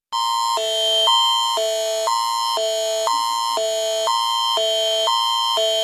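Canadian Alerting Attention Signal, the emergency alert tone that opens a broadcast alert: a higher and a lower set of tones alternating about every half second over a steady high tone, starting abruptly.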